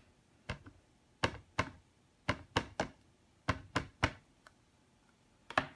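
Rapid sharp taps and clicks, about a dozen over a few seconds in small irregular groups, as a Stampin' Up! classic ink pad is tapped onto a photopolymer stamp mounted on a Stamparatus plate.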